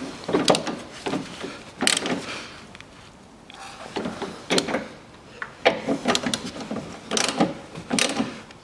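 Ratchet wrench on a long socket extension clicking in short bursts every second or so as engine mount bolts are tightened, with light metal knocks of the tool against the mount.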